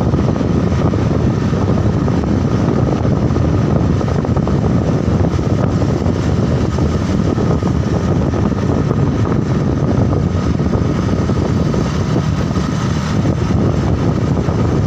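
Steady vehicle engine and road noise, even in level throughout.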